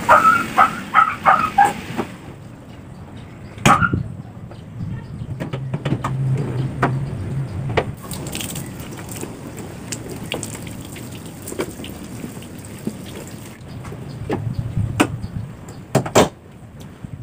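Garden hose spraying water, with scattered knocks and clicks. Near the end, the Perodua Myvi's bonnet is shut with a loud double thud.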